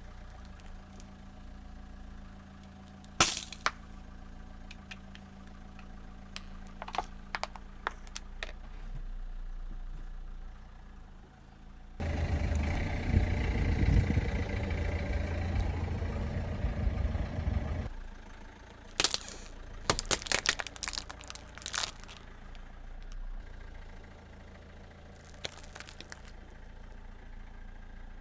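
Car engine running low and steady, with sharp cracks and crunches of objects breaking under the tyres. About twelve seconds in, a louder stretch of engine and rolling noise lasts some six seconds.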